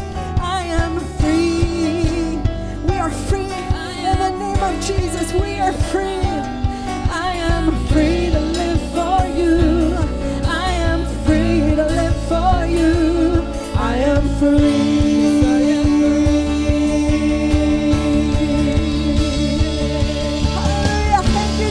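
Live worship band music: a female lead singer and a backing singer sing into microphones over guitar and a steady beat. A long note is held from about two-thirds through.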